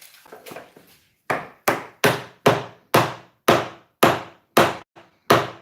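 A mallet striking a spatula about nine times, roughly two blows a second, starting a little over a second in, to drive the blade behind a drawer front stuck on with double-sided tape.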